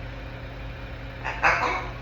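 African grey parrot making one short raspy call about a second and a half in, over a steady low background hum.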